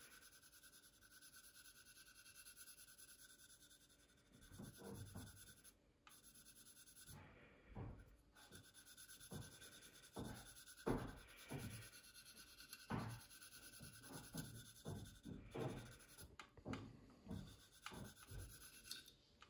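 Fine sanding stick rubbed lightly over the filled seam of a plastic model aircraft fuselage to smooth out scratches. It makes faint, irregular short strokes that come more often from about four seconds in.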